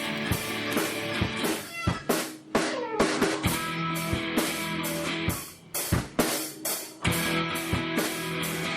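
Background music with guitar and drums, a steady beat of regular drum hits under sustained guitar.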